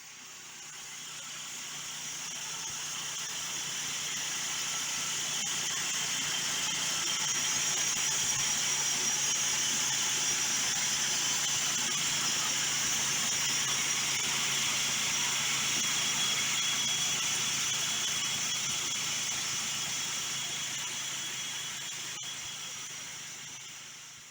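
MechMaxx 26-inch band sawmill running, its gas engine humming under the hiss of the blade cutting through the log. The sound swells gradually and fades away near the end.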